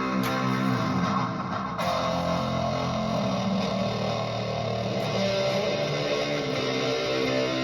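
Electric guitar, a Gibson Les Paul, played through effects pedals into a Vox AC15 valve combo amp: sustained, ringing chords, with a change of chord about two seconds in.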